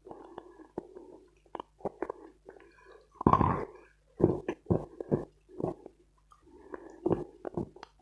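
Close-miked chewing of dense dry Khrapovsky chalk: sharp crunches between softer mouth and chewing noises, with the loudest crunch a little after three seconds in.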